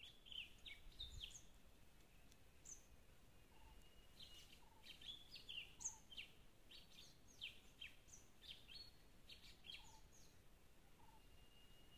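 Faint wild birdsong: many short chirps and quick falling notes scattered throughout, with a thin steady high tone a few seconds in and again near the end.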